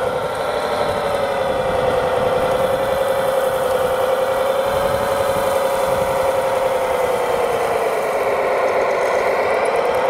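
Radio-controlled scale model of a Liebherr 741 crawler dozer running across gravel, giving a steady engine-like drone. The drone sinks in pitch about eight to nine seconds in, then rises again near the end.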